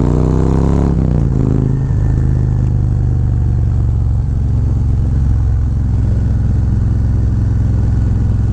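Harley-Davidson Road Glide's Milwaukee-Eight V-twin engine under way. It rises in pitch as the bike accelerates, drops about a second in, then settles into steady, low cruising.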